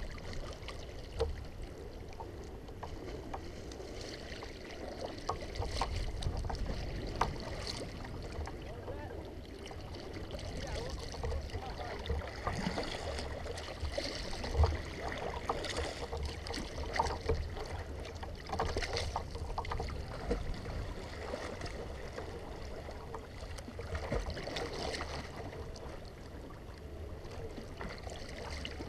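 Kayak being paddled on open water: repeated paddle splashes and water lapping against the plastic hull.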